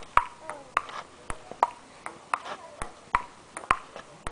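Table tennis rally on an outdoor concrete table: the ball clicks sharply off the table and the paddles, about two hits a second, several of them followed by a short ringing tone.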